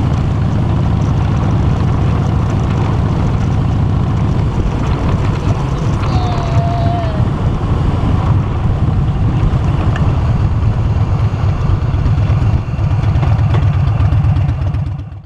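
Harley-Davidson motorcycle engine running steadily while riding, its deep firing pulses under a constant rush of wind over the handlebar-mounted microphone.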